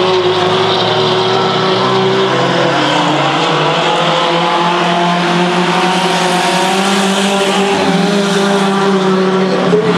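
Several mini-truck race engines running together as one steady drone of overlapping engine notes, with little revving.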